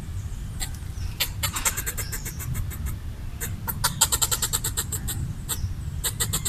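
Red squirrel chattering: runs of sharp, rapid chirps, about ten a second, in several bursts. It is the territorial call a red squirrel uses to scare off a perceived threat.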